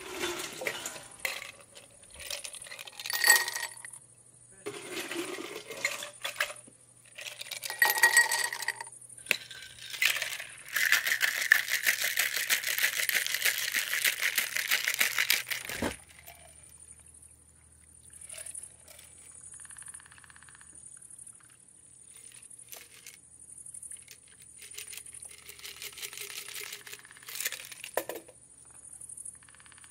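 Ice and glass clinking, then ice rattling hard in a stainless steel cocktail shaker for about five seconds before stopping abruptly; quieter clinks of ice and glasses follow.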